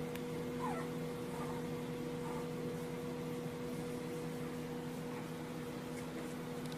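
Steady low electrical hum over even hiss, with a faint short falling squeak about half a second in.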